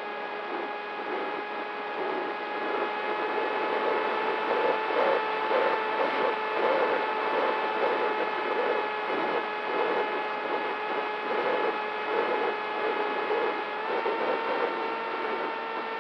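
DYS Fire 2206 2300KV brushless motor spinning a Gemfan 6x4 propeller on a foam flying wing, heard from the onboard camera as a steady whine over wind rush with irregular fluttering through the middle. Its pitch steps up slightly near the end.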